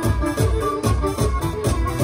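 Black Sea horon dance music, instrumental, led by the Karadeniz kemençe over a quick, steady beat.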